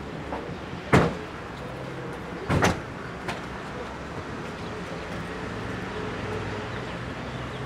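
A car door slams shut about a second in, followed by a second, slightly longer clunk about two and a half seconds in, over the steady low hum of an engine.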